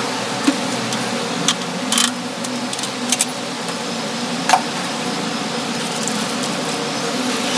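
Scattered light clicks and knocks of a metal clothes-drying rack and mop handle being moved, over a steady machine hum.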